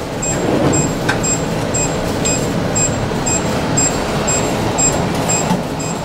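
Electronic alarm on a TWS-850 reflow oven beeping, short high-pitched beeps about twice a second, over the steady rush of the fume extractor and oven fans. A single click about a second in.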